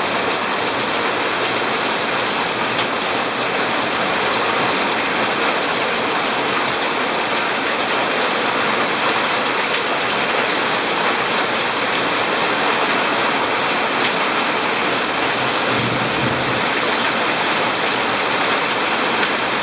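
Heavy rain pouring steadily onto garden plants and a water-covered concrete path: a dense, even hiss.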